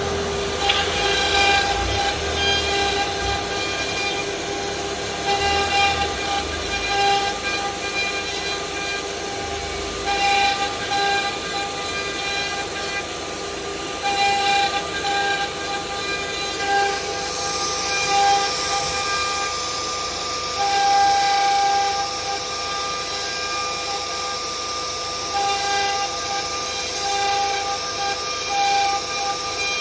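ATC 4-axis swing-head CNC router running under test: a steady, multi-toned machine whine, with some tones cutting in and out every few seconds over a constant hiss.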